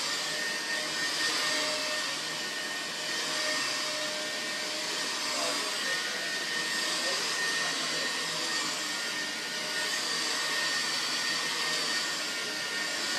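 Vacuum cleaner running steadily, a constant rushing hum with a high whine, as it picks up carpet-cleaning sponges.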